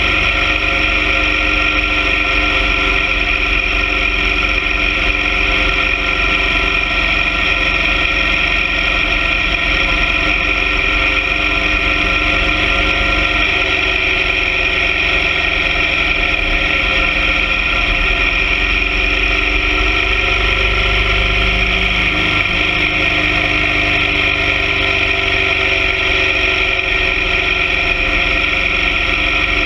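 BMW R 1200 GS Adventure sidecar rig's boxer-twin engine running steadily under way, with slight shifts in pitch about midway and again past two-thirds of the way.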